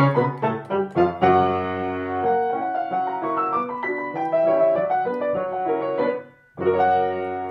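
Grand piano being played: quick repeated chords, then slower held notes that die away into a brief pause about six seconds in, before a new chord is struck.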